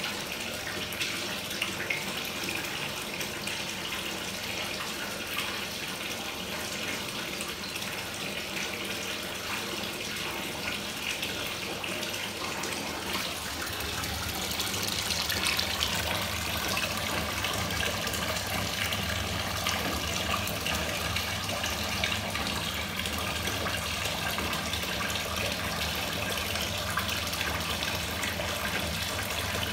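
Water running from the tap into a bathtub: a steady rushing hiss that grows louder about halfway through.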